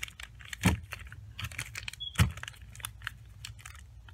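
Wrapped candy bars being handled and restacked: crinkling wrappers and light clicks, with two louder knocks about a second and a half apart as bars are set down on the stack.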